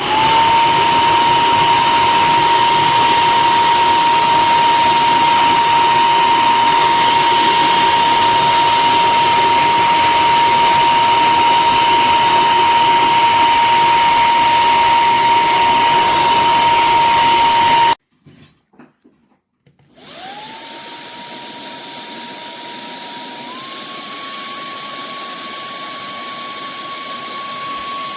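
Cordless handheld vacuum cleaner's motor spinning up to a steady high whine and running for about eighteen seconds, then switching off abruptly. After a couple of seconds of near silence with faint clicks, it starts up again, quieter and at a different pitch, and its pitch steps up slightly a few seconds later.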